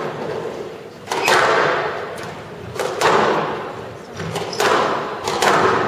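A squash rally: the ball struck by rackets and smacking off the court walls, four sharp hits about 1 to 2 seconds apart, each with a long echo in the hall.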